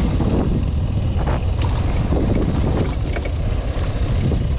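Motorcycle ride on a dirt road: a steady rush of wind over the microphone with the bike's engine running underneath.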